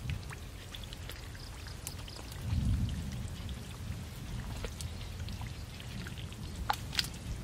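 Muddy pond water sloshing and dripping as a man's arms move through it, feeling under the water, with scattered small splashes and drips. It gets louder for a moment about two and a half seconds in.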